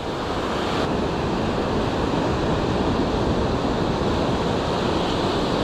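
Ocean surf breaking and washing up a sandy beach, a steady rushing wash of waves.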